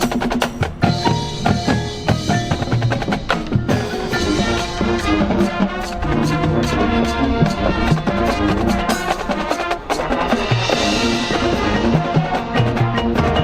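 High school marching band playing, winds and pitched notes over a busy percussion section with many sharp hits.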